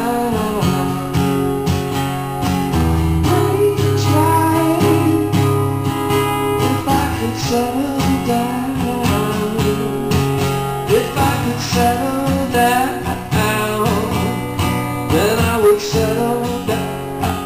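Acoustic guitar strummed in a steady rhythm, the instrumental close of a live song.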